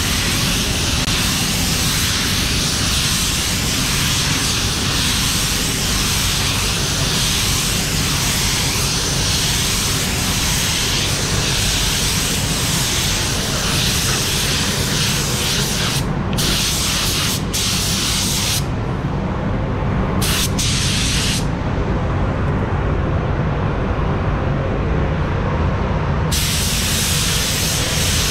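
Compressed-air paint spray gun spraying clear coat, a loud steady hiss over a low rumble. From about sixteen seconds in the hiss stops and starts several times, then drops out for several seconds near the end while the rumble carries on.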